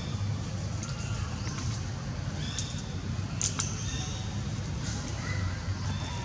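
Outdoor background of a steady low rumble, with scattered short, high-pitched chirps and calls, the brightest a little over three seconds in.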